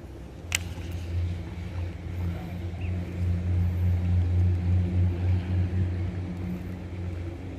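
An engine droning low and steady, growing louder toward the middle and fading near the end, like a motor vehicle passing. A single sharp click about half a second in.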